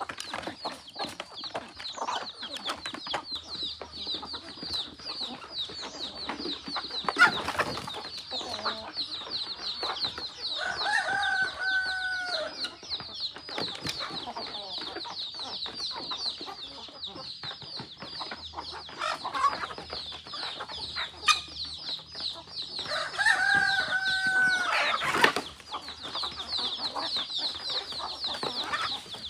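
A flock of free-range chickens clucking and calling over a constant chorus of quick, high peeps. Two longer drawn-out calls stand out, one near the middle and one about four-fifths of the way through, among scattered short clicks.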